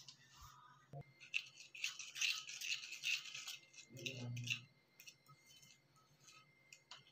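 Plastic spoon stirring a spice paste in a ceramic bowl, a faint rapid scraping and clicking against the bowl from about a second in until about four and a half seconds in, then a few light taps.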